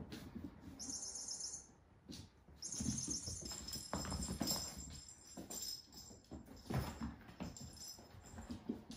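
Kittens romping on a hard floor: soft thumps and scuffs of paws and bodies as they run and wrestle. A small jingle-bell toy rattles in two bursts, briefly about a second in and again for a couple of seconds in the middle.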